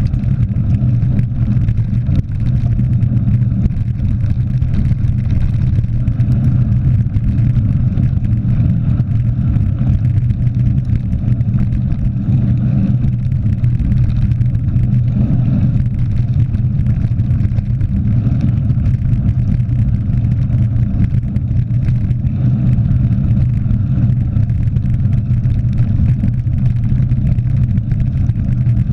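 Steady rush of wind on a handlebar-mounted action camera and the low rumble of mountain bike tyres rolling over a gravel forest road at speed.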